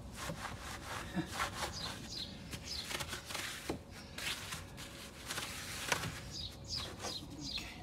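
Long-handled wheel brush scrubbing a soapy alloy wheel between the spokes: irregular swishing, scraping strokes.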